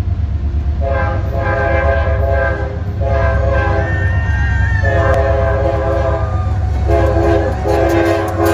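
Diesel freight locomotive approaching and sounding its horn in a series of blasts, several long ones followed by shorter ones near the end, over the steady low rumble of its engine.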